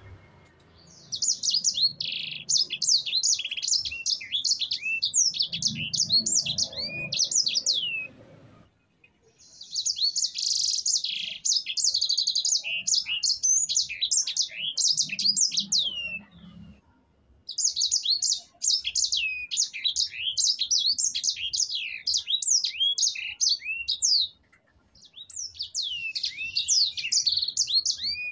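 Sanger finch singing vigorously in long rolling phrases (ngerol): rapid high chirps and quick downward-sweeping notes strung together. The song comes in four runs of about seven seconds each, with pauses of about a second between them.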